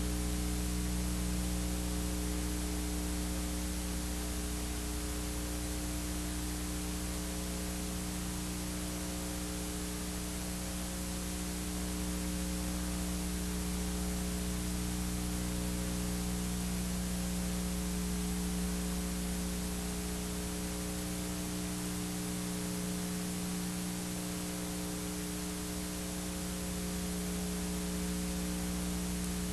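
Steady electrical hum with an even hiss over it, unchanging throughout, with no other sounds.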